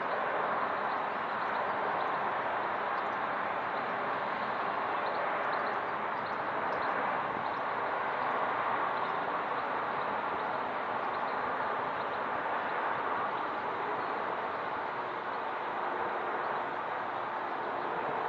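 Steady rushing jet noise of a Boeing 787-9 Dreamliner airliner flying overhead on approach, swelling slightly midway.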